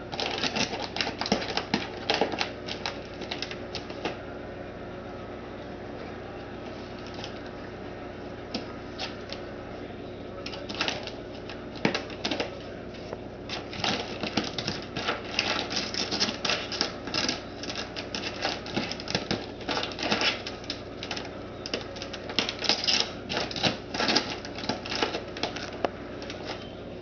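A cat clawing and biting at a plastic bag of dry cat food, the bag crinkling and crackling in quick runs. It goes quieter for several seconds after the first few, then picks up again into a dense, busy run of crinkles.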